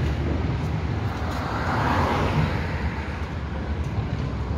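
Road traffic on a multi-lane city street: a steady rumble and hiss of passing vehicles, swelling about two seconds in as one goes by close.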